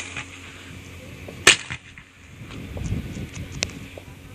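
Roman candle firing: a sharp pop right at the start, a loud crack about a second and a half in, and a fainter pop about two seconds later, with a low rumble between them.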